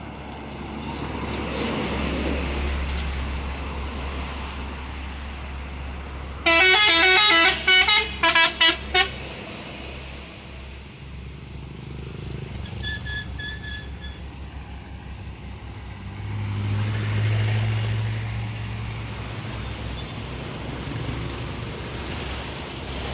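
Trucks passing on the highway with engine rumble; about a quarter of the way in, a truck's telolet horn plays a loud, fast run of stepped musical notes for about two and a half seconds. A fainter short toot sounds about halfway, and another heavy engine passes with a deep rumble later on.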